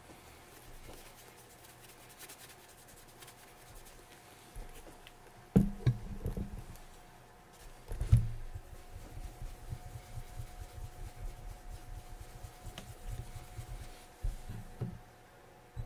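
Handling noises from a leather boot being worked on: two sharp knocks about five and a half and eight seconds in, then a run of soft, quick rubbing strokes, as with a cloth working polish into the leather.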